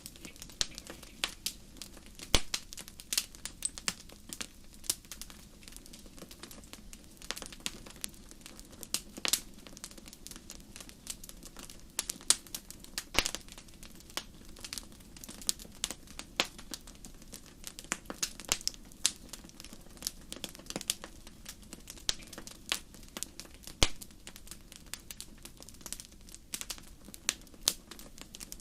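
Fire crackling: irregular sharp pops and snaps, a few much louder than the rest, over a faint steady low hiss.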